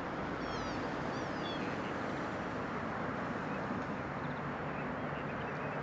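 Outdoor ambience: a steady wash of background noise, with a few quick, high, falling bird chirps in the first two seconds and fainter chirps later.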